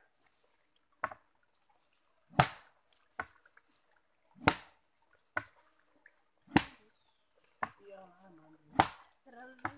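Sago pith being pounded out of a split sago palm trunk with a long-handled sago pounder: a heavy chopping strike about every two seconds, four in all, with a lighter knock halfway between each pair.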